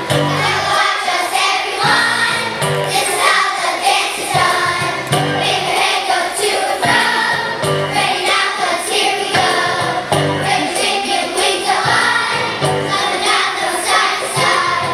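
Children's choir singing in unison over instrumental accompaniment with a steady, regular bass line.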